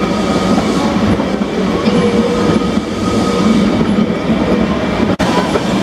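Manx Electric Railway tramcar running along the track, heard from on board: a steady rumble and clatter of the wheels on the rails.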